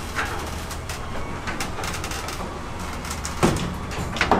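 Ryobi garage door opener running as the garage door rolls open: a steady mechanical rumble with a low hum, and a couple of sharp clacks near the end.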